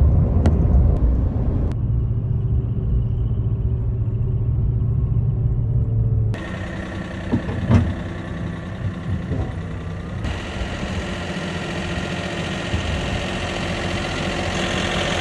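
Chevy Silverado 2500HD pickup towing a trailer, heard from inside the cab as a low steady rumble of engine and road. About six seconds in it cuts to the truck idling while parked, with a couple of knocks shortly after.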